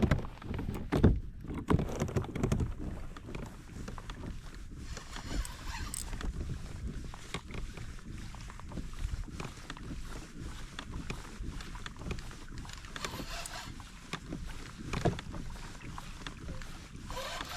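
Small fishing boat on open water: a steady wash of water and air noise with scattered knocks and bumps against the hull, the loudest ones near the start.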